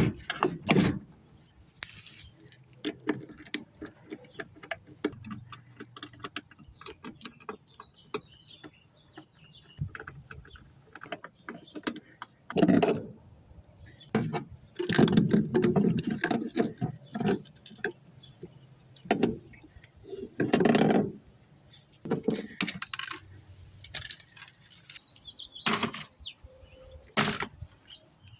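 Metal parts and tools clinking and rattling as a washing machine is dismantled for scrap: a steady run of small clicks and taps, with a few louder clatters past the middle.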